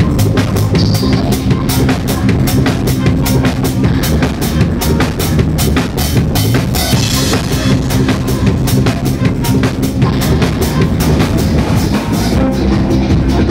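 Live psydub band playing, led by a drum kit keeping a steady beat of about four hits a second over sustained bass notes. Near the end the cymbals and high drum hits drop back and the bass line comes forward.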